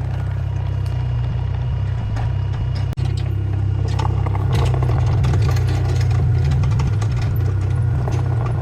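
Small excavator's diesel engine running steadily, with clattering and scraping from the machine at work that grows busier about halfway through. The sound breaks off for an instant about three seconds in.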